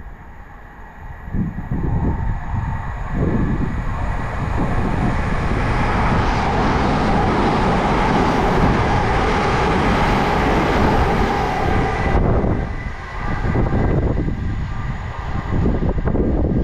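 c2c electric multiple unit running through the station without stopping, on the track beside the platform: a rush of wheel-on-rail noise builds over the first couple of seconds and holds loud for several seconds. It drops away suddenly about twelve seconds in as the last coach clears, leaving a low rumble.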